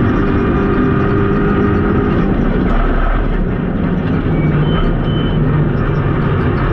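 Renault Clio Rally4's turbocharged 1.3-litre four-cylinder engine pulling hard, heard inside the cabin. About three seconds in the engine note drops as the car shifts down from fourth to third, then runs on at a lower pitch.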